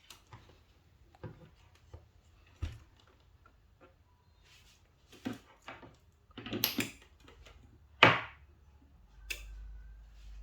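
Scattered clicks and knocks of hands working on electrical equipment, with a sharper click about eight seconds in. About a second later a low steady electrical hum sets in as the gas detector's controller is switched on.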